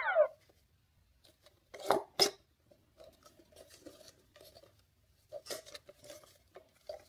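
Hands handling a plastic Grinch pop-it quick-push game console: two sharp plastic clacks about two seconds in, then faint tapping and rubbing as it is turned over. Right at the start, the toy's electronic tune ends with a falling glide.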